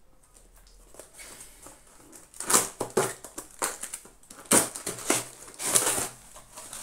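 Shipping package being torn open and its packaging crumpled and rustled, in irregular crackling bursts starting about two seconds in.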